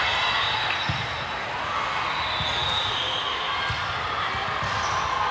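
Dull thuds of volleyballs hitting a hardwood gym floor, about one a second, over a steady murmur of voices in a large, echoing gym hall.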